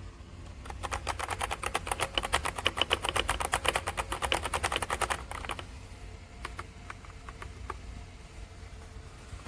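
Fast typing on a Redragon K689 mechanical keyboard with linear switches: rapid keystrokes for about five seconds, then a few scattered single key presses.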